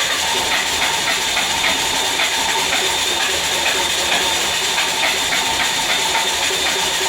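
Ford 5.4L V8 in a 2006 E350 van turning over with a harsh, steady noise and a regular beat of about five or six pulses a second. This is the 'very bad noise' the owner is chasing, which doesn't change when coils 1 to 4 are unplugged.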